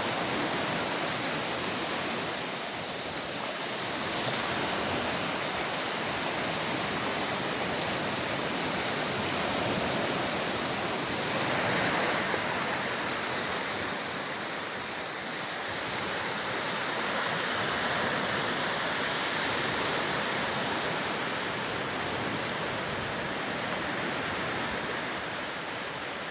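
Sea surf washing onto a beach: a steady rush of waves that swells and eases every several seconds.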